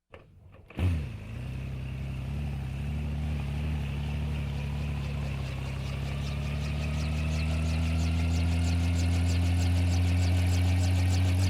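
Helicopter engine starting up: it catches suddenly just under a second in, then runs with a steady low hum and a slowly rising whine as it spools up. A fast, even beat comes in about halfway and grows as the sound gets steadily louder.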